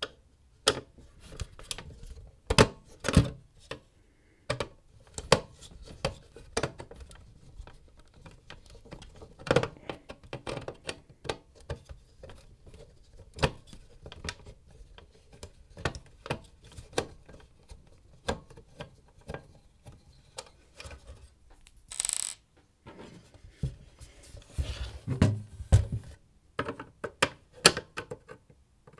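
Hands working on a small electrical appliance: an irregular run of clicks, taps and rattles of plastic and metal parts and tools being handled, with a short scrape about two-thirds of the way through and a few heavier knocks soon after.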